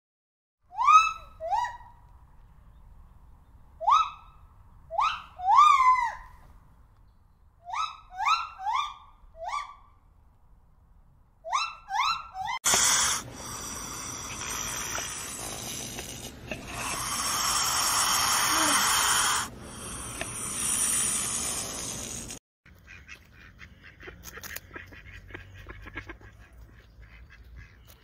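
Bird calls: short clear notes that rise and then level off, in clusters of one to four, repeated for about the first twelve seconds. Then a steady hiss with a brief break runs for about ten seconds. Faint rapid clicking follows near the end.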